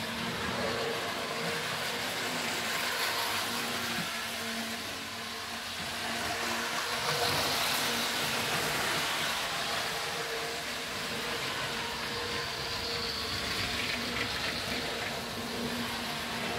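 Mehano H0-scale model high-speed train running on the layout's track: a steady whir and hum of its motor with the wheels rolling over the rails, louder about seven to nine seconds in as it passes close.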